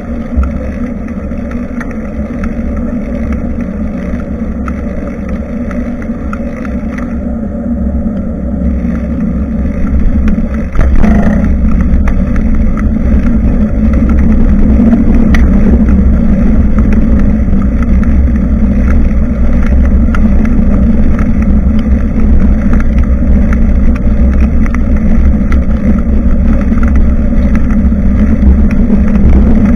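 Steady wind noise rumbling on a bicycle-mounted action camera's microphone during a ride, mixed with the bike's rolling noise. It gets louder about eleven seconds in and stays so.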